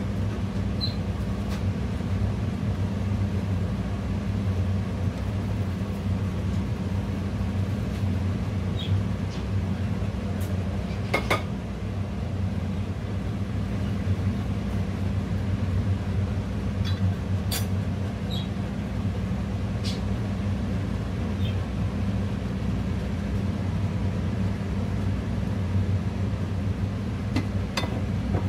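A steady low hum throughout, with a few light clinks and taps on a glass mixing bowl as shredded cabbage and spices are added and mixed by hand.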